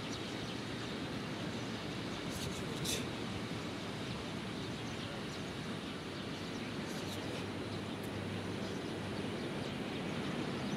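Steady outdoor background noise, a low rumble and hiss, with a few faint, short high clicks about two and three seconds in and again around seven seconds.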